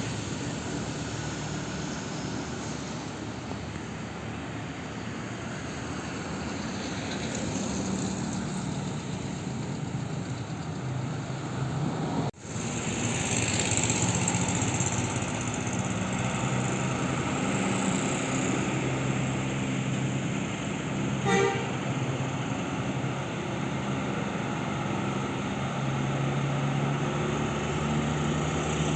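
Buses running at a road junction, a steady engine rumble throughout, with one short horn toot about three-quarters of the way through and a brief dropout near the middle.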